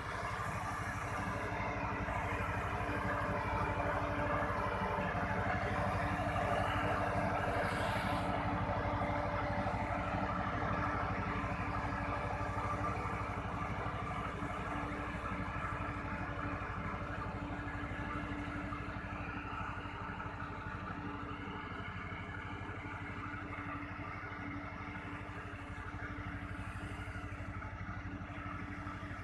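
Engine of a spraying machine running steadily at constant speed, slowly growing fainter over the second half.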